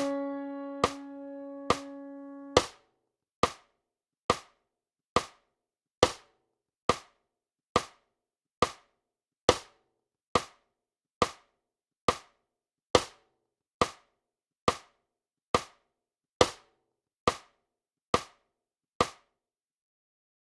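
Notation-software playback ending on a held electric-piano chord that fades out over the first few seconds. A metronome click, about 70 a minute, goes on alone after the chord and stops shortly before the end.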